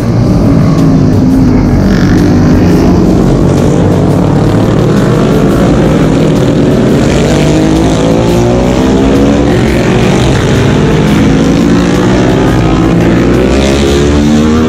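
Racing motorcycles passing one after another at speed, their engines running loud and continuous with notes that rise and fall in pitch as the bikes accelerate and go by.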